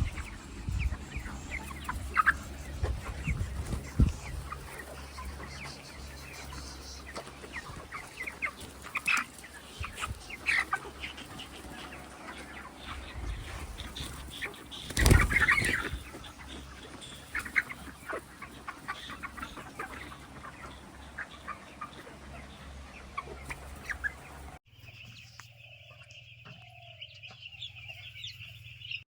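Chickens clucking, many short calls one after another, the loudest about halfway through. About four seconds before the end the sound cuts abruptly to something quieter.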